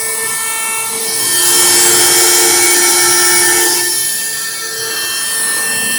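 CNC router spindle whining steadily as its bit carves a wooden nameplate. The cutting noise swells louder for a couple of seconds in the middle.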